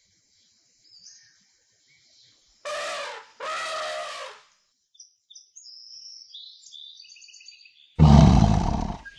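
Cartoon animal sound effects over faint birdsong: two short pitched animal calls about three seconds in, then a loud, deep roar lasting about a second near the end.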